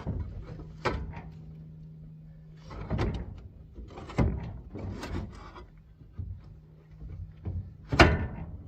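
Metal parts of a forage chopper's chain drive being handled and fitted: a run of irregular clanks and scrapes, the loudest clank near the end, over a faint steady low hum.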